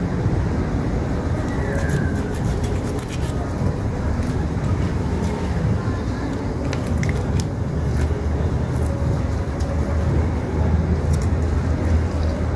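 A knife scraping scales off a fish, faint scratchy ticks in short clusters now and then, over a steady low rumble.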